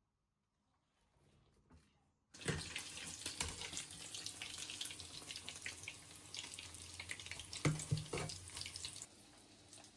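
Water running from a tap into a sink, starting abruptly a couple of seconds in and cutting off about a second before the end, with a few knocks and clicks.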